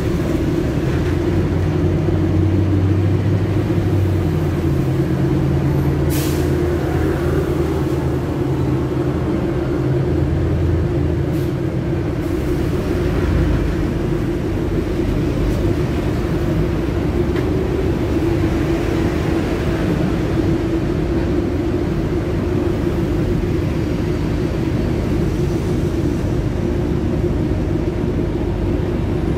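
The rear-mounted Scania OC9 five-cylinder diesel engine of a Scania K250 UB city bus running steadily, heard from inside the passenger cabin. There are brief sharp sounds about six and twelve seconds in.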